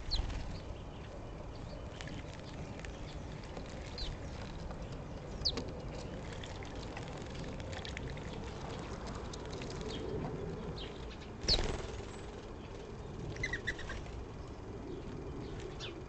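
Sparrows bathing in a bird bath: splashing and wing-flapping in the water, with short, high, falling chirps now and then. The loudest flutter and chirp come about 11 seconds in.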